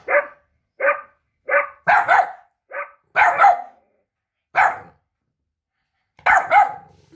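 A dog barking, a recorded bark sample played from a Google Assistant smart speaker: about ten sharp single barks at uneven spacing, some in quick pairs, with a pause of over a second before a last double bark near the end.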